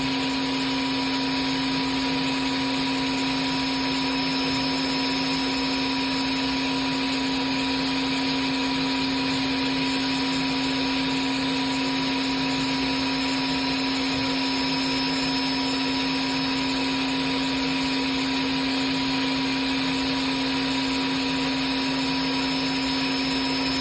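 Fanuc Robodrill Alpha T-14iA CNC machining center's spindle running steadily at 8,000 RPM: a constant hum with a steady tone, with no change in speed.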